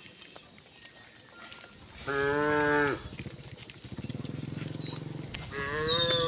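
Cattle mooing: one moo lasting under a second about two seconds in, and a second moo starting near the end. A steady low rumble comes in at about four seconds, with a few high bird chirps and a falling whistle late on.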